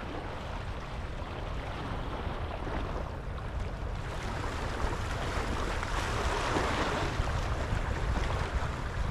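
Wind rumbling on the microphone over the steady wash of sea water, swelling a little around six to seven seconds in.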